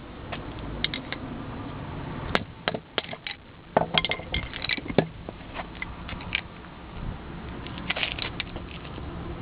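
Hand tools clicking, tapping and scraping against the thin sheet-metal dust cover over the ABS pulsing ring on a CV axle as it is worked off, in irregular sharp knocks with one hard strike about two seconds in.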